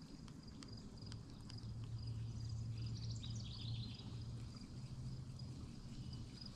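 Faint outdoor ambience: a steady insect trill, with a short burst of bird chirping about three seconds in and a few faint clicks in the first second and a half.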